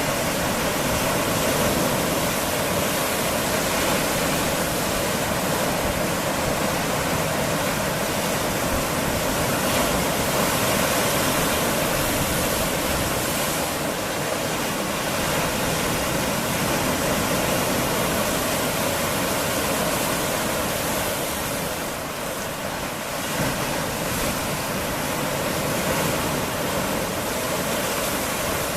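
Mediterranean sea waves surging against and through wave-worn rock on a rocky shore: a steady rush of churning water, dipping slightly a few seconds before the end.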